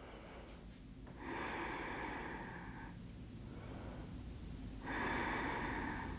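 A woman taking slow, deep breaths close to the microphone while holding a yoga stretch: one long breath about a second in and another near the end.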